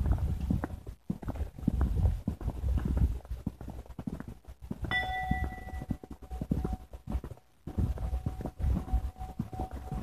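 Footsteps and camera-handling thumps of people walking, irregular and uneven, pausing briefly about seven seconds in. About five seconds in, a short bell-like ding rings for about a second.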